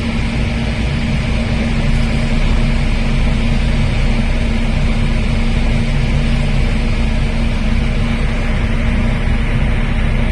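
High-speed passenger boat's engines running steadily at cruising speed, heard loud from the open deck as a constant drone with a strong low hum under a rushing noise.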